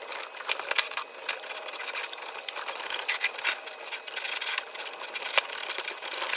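Billet flywheel being twisted back and forth by hand on the Tillotson 212 crankshaft taper with valve grinding compound between them: a continuous gritty scraping with many small clicks. The grinding lapping is bedding the flywheel's bore to the crankshaft for a better seat.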